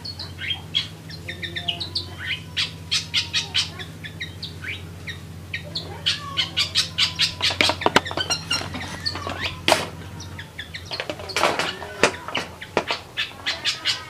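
Long-tailed shrike singing a fast, busy run of short sparrow-like chirps, bunched thickest twice in the middle of the stretch. A faint low hum underneath stops about ten seconds in.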